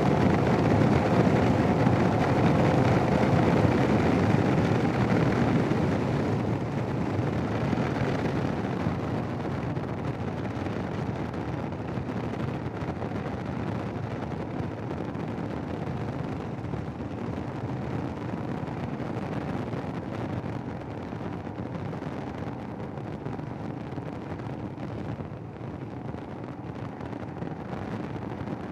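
Wind noise buffeting a helmet intercom microphone on a moving Royal Enfield Himalayan, with the single-cylinder engine running underneath; the small windscreen gives the helmet little protection, so it is very noisy. The noise eases gradually after about six seconds.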